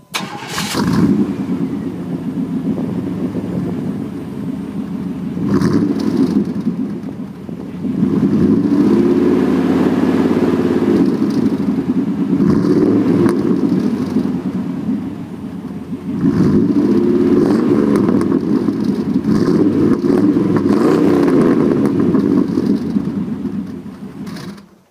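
1996 Chevy 5.7 L Vortec V8 exhaust through true duals and Dynomax Bullet mufflers. The engine starts up right at the beginning and idles, then is revved up and down in two long spells. It is shut off just before the end.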